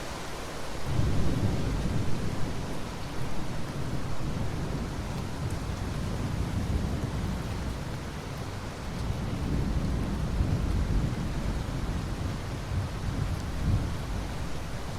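Steady rain hissing, with a long rolling rumble of thunder that builds about a second in and swells again twice before fading.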